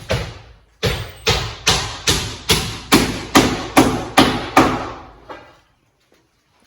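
Hammer driving nails into wood: a steady run of strikes a little over two a second, stopping about five seconds in.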